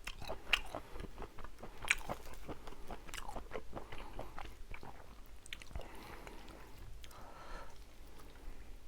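Close-miked chewing and biting of braised pollack and seafood: a run of wet clicks and crackles, dense for the first five seconds or so and softer toward the end.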